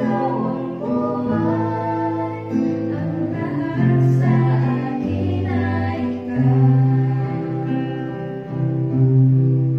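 Acoustic guitar strummed as accompaniment to young voices singing a gospel song together.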